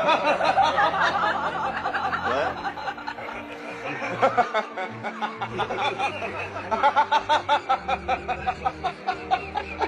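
People laughing, with a run of quick repeated bursts of laughter near the end.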